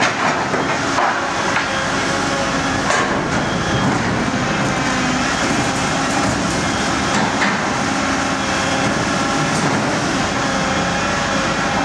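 Volvo EC 950F demolition excavator running under load as its MBI SH 1100R scrap shear works scrap metal. The engine and hydraulics run steadily, with a few sharp metal knocks and clanks from the shear.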